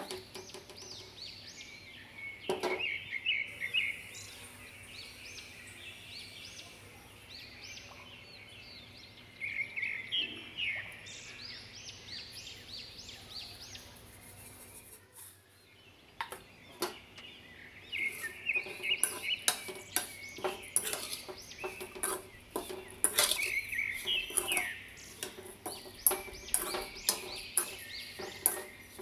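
A steel spoon stirring and scraping dry grated coconut and wheat flour in an aluminium kadai, with quick clicking scrapes that come thickest in the second half. Clusters of short rising high chirps sound on and off throughout.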